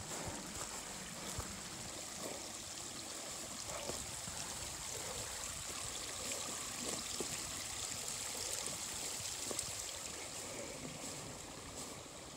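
Small rocky mountain creek trickling and running over stones in a steady rush of water, with a few light footsteps on the trail. The water fades slightly near the end.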